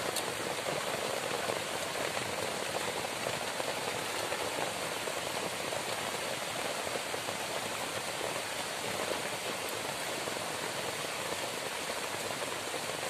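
Heavy rain falling steadily on a simple shelter of grass and leaves and on the foliage around it.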